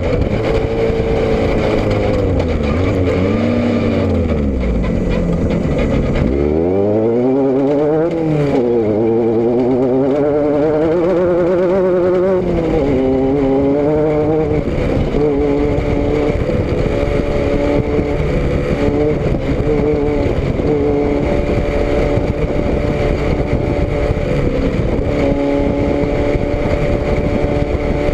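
A vehicle's engine running loudly. Its pitch dips about six seconds in, climbs and swings up and down a few times, then holds steady through the second half with a small rise near the end.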